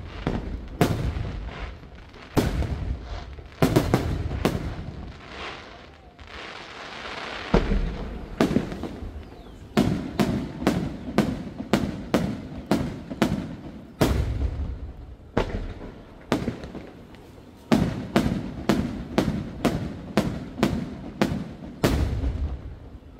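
Aerial firework shells bursting in quick succession: sharp bangs with echoing tails, irregular at first, then in runs of about two a second. There is a stretch of hissing crackle around six to eight seconds in.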